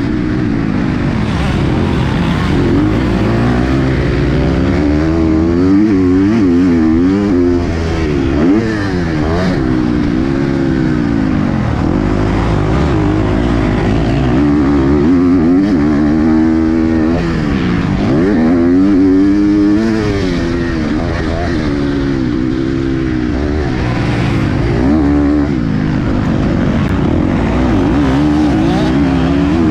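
KTM 250 SX-F's four-stroke single-cylinder engine at race pace, its pitch repeatedly climbing and dropping off as the throttle is opened and closed.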